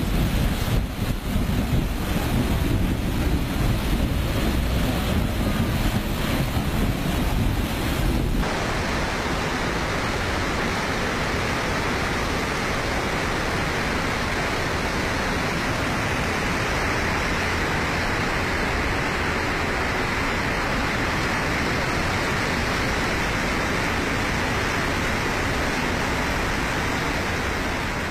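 Wind buffeting the microphone over a low rumble, gusting unevenly; about eight seconds in it cuts to a steady, even rushing noise, which begins to fade near the end.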